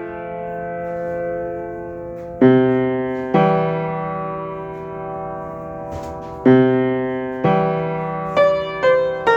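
Piano playing a slow, repeating riff: chords struck and left to ring out, each fading before the next, with quicker notes near the end.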